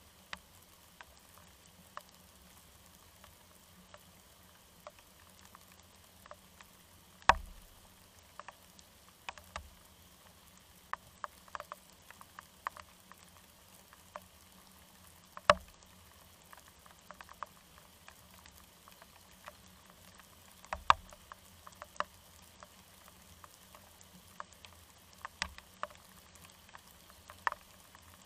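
Rain pattering: a faint steady hiss with irregular sharp drip ticks and three louder knocks spread through the clip.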